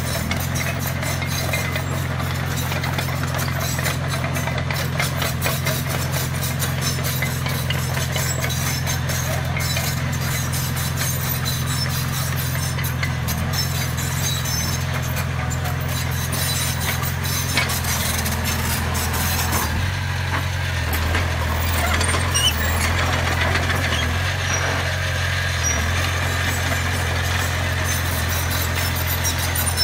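Komatsu D20A crawler dozer's diesel engine running steadily under load, with the clatter of its steel tracks as it pushes gravel. The engine note shifts and gets a little louder about two-thirds of the way through.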